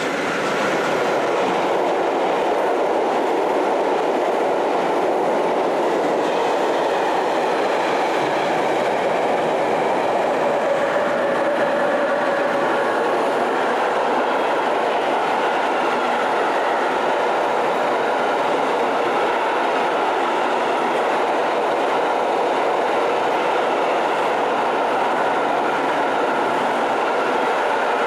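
Freight train hauled by an electric locomotive, with container wagons, rolling past close by: a steady, loud rush of wheels on rails that holds at the same level throughout.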